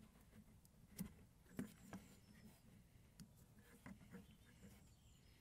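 Near silence, with a few faint scattered clicks and taps of fingers working the plastic locking tab on the ambient temperature sensor's two-pin plug, which is stuck tight.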